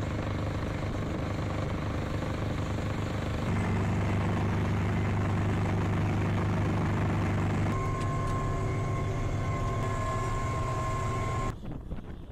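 Truck-mounted rotary snow blower's engine running steadily under load as it cuts through deep snow, with a steady high whine joining in later. Near the end it gives way abruptly to wind noise on the microphone.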